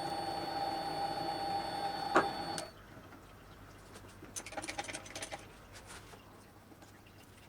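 Small electric motor running with a steady whine, a sharp click about two seconds in, then cutting off suddenly. A few light clattering taps follow.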